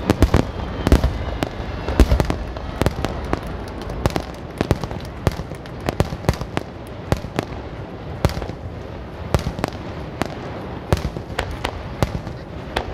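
Aerial fireworks bursting in rapid succession: a dense run of sharp cracks and pops, with a few heavy booms in the first two seconds.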